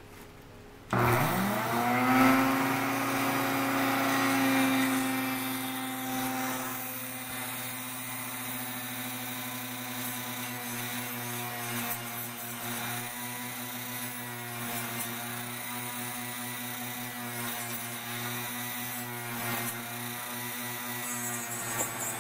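Dremel rotary tool with a small sandpaper wheel switching on about a second in, its whine rising quickly to a steady pitch, then running on while the disc sands excess J-B Weld out from between the edges of a plastic puzzle piece.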